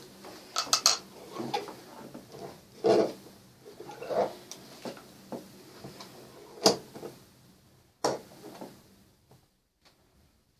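Metal utensil clinking and knocking against a pot of rendering pork fat: about six separate knocks over the first eight seconds, then it goes quiet.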